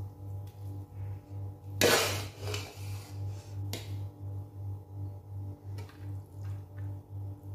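A metal serving spoon scraping and clinking against a pot and dish as rice is dished out, with one louder clatter about two seconds in and a few lighter clicks after. Soft background music with a steady low beat runs underneath.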